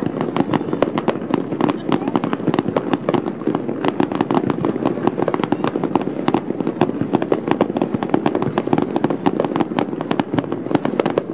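Fireworks going off: a dense, continuous crackle of many rapid sharp pops and bangs, several a second, with no break.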